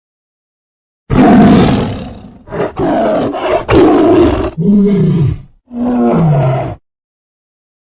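Tiger roaring. About a second in, a loud roar trails off, followed by a run of shorter roars and growls. Then come two calls that fall in pitch, each ending abruptly in dead silence.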